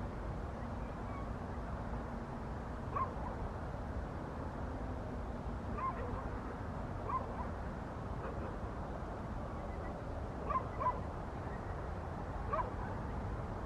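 A dog barking in the distance now and then, about six short barks, two of them close together, over a steady low background rumble.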